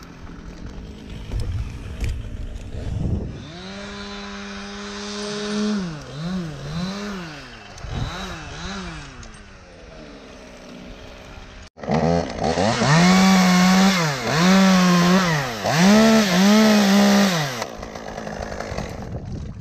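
Two-stroke chainsaw running, its throttle revved up and dropped back again and again in quick cycles. It comes in two spells, the second louder one starting abruptly after a short break.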